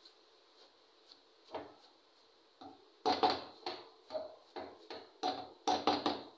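Long wooden spoon stirring chopped leafy greens in a large aluminium pot, knocking and scraping against the pot. A couple of faint strokes come first, then about halfway through a quick run of louder knocks, around three a second.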